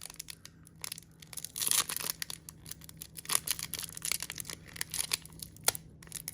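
Foil wrapper of a trading card pack crinkling and crackling as it is handled and pulled at to tear it open, in short irregular crackles, loudest about two seconds in.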